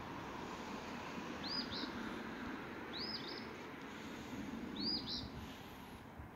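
A small bird repeating a short two-note call about every second and a half, over the steady rush of stream water breaking along the bank.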